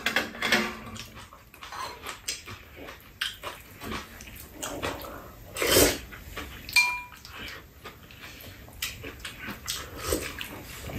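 Close eating sounds: chewing, smacking and slurping, with metal spoons and chopsticks clicking against bowls. There is a louder knock near the middle, and about seven seconds in a spoon rings briefly against a bowl.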